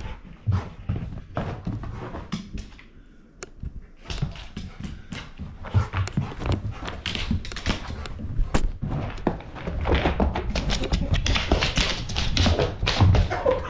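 A Great Pyrenees mix puppy running and romping wildly indoors: a fast, irregular patter of thuds and clicks from paws hitting the floor. It gets busier and louder in the last few seconds.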